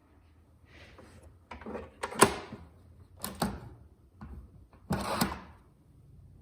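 Handling clatter: a string of separate hard clunks and clicks, about one a second, with a longer rustling scrape around five seconds in.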